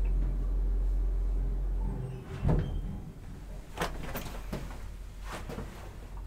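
1997 KONE Novel hydraulic elevator running with a steady low hum that stops about two seconds in as the car halts. A thump follows, then a few short clicks and knocks.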